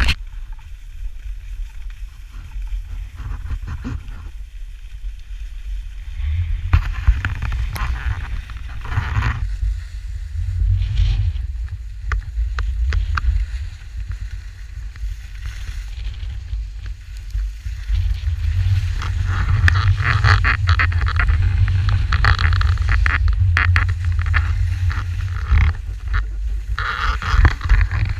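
Wind rumbling on the microphone while skiing downhill, with skis hissing and scraping over packed snow. The scraping gets louder in the second half.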